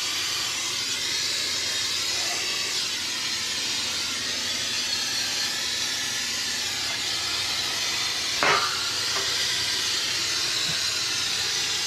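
Aerosol can of canola cooking oil spraying in a long steady hiss, coating the inside of a new electric smoker to season it. A short higher-pitched sound comes about eight and a half seconds in.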